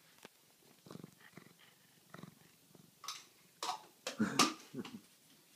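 Domestic tabby cat purring while begging to be fed, in soft uneven pulses. A few louder, sharper sounds come about three to four and a half seconds in.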